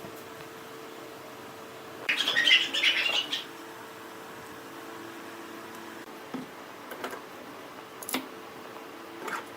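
Steady hum of a wood lathe running. About two seconds in comes a loud, scratchy burst lasting about a second and a half, then a few light clicks.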